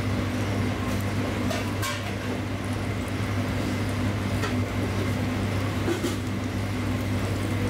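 Steady kitchen background noise: a constant low hum with an even hiss, from the lit gas burners and kitchen equipment, with a few faint clicks.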